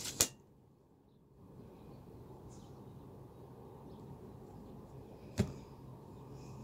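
Tarot cards handled at a wooden table: two sharp taps, one just after the start and one about five seconds later, as cards are drawn from the deck and laid down. A low steady room hum runs underneath.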